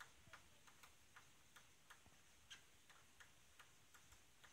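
Woodpecker pecking at a tree trunk: faint, separate sharp taps about three a second, slightly uneven, rather than a fast drumming roll.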